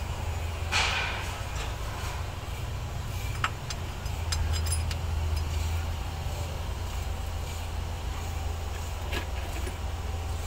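Hand tools working metal on a truck diesel engine's fuel filter bracket: a short scrape about a second in, then a few sharp metallic clicks. A steady low machinery hum runs underneath.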